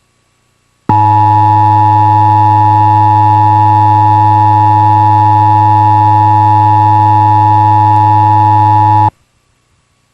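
Emergency Alert System attention signal: a steady two-tone alert tone with a low hum beneath it. It starts abruptly about a second in, holds unchanged for about eight seconds and cuts off suddenly. It marks the start of an EAS alert, here a Required Monthly Test, and comes just before the spoken message.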